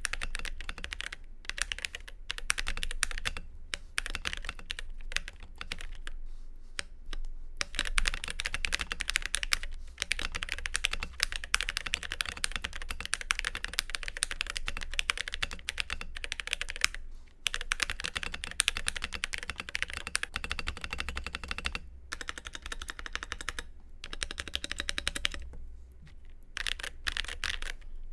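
Typing on a stock CK820 75% aluminium-case keyboard with tactile Neapolitan Ice Cream switches, XDA PBT keycaps, a polycarbonate plate and stock foam: fast runs of keystroke clacks broken by short pauses. The sound is pingy and really hollow, which the builder puts down to the stock foam not damping the high ping.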